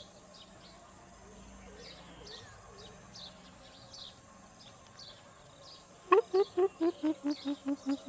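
Greater coucal calling, a fast, even series of low hooting notes at about five a second that starts about six seconds in, the first few notes slightly higher before they settle lower. Before the series there are only faint, short, high chirps in the background.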